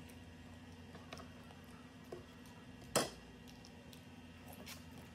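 A sharp clink of a metal spoon against a ceramic plate about three seconds in, with a few faint clicks and taps of tableware around it.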